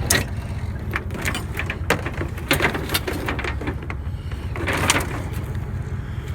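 Steady low rumble with scattered short clatters and knocks.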